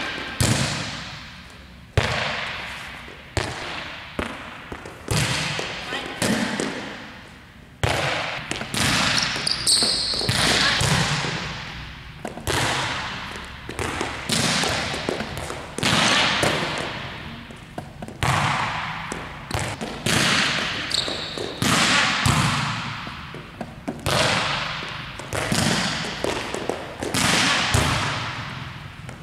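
Volleyball being struck over and over in serve-receive passing: sharp hits of the ball every second or two, each one echoing in a large gym.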